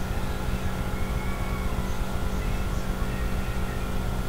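Steady low rumble with a constant mechanical hum: the room's background noise, with no distinct events.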